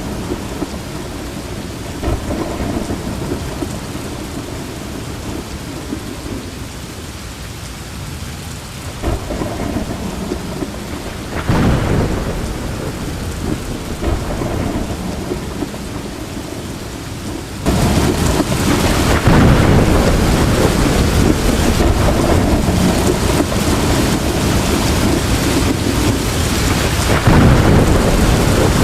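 Thunderstorm: steady heavy rain with low rolls of thunder, and a louder thunder rumble about eleven seconds in. At about eighteen seconds the rain abruptly turns louder and denser and stays that way.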